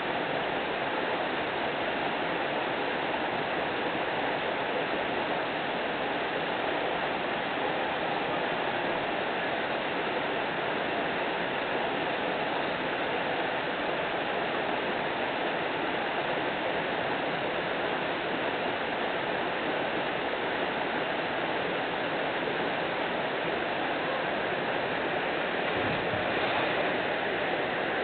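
Water sheeting down a broad, sloping rock-slab waterfall into a pool, a steady, even rush.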